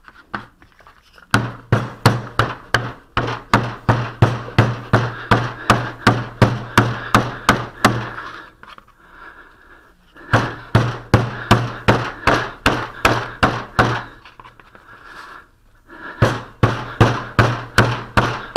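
Wooden mallet beating a lump of old Sarco Type M window glazing putty, about three blows a second in three runs with short pauses between as the putty is folded. The beating works freshly added oil into the putty.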